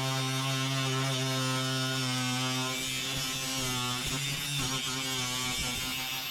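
Electric power tool running with a steady buzzing hum. From about three seconds in its pitch wavers and breaks up, then it steadies again near the end.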